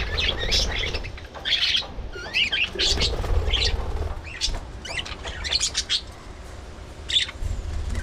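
Budgerigars chirping in quick, short calls, one after another, then a short lull and a single last call near the end.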